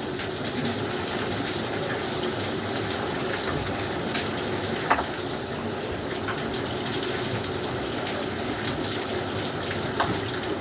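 Steady rushing water with a few light clicks and knocks, one sharper knock about halfway through.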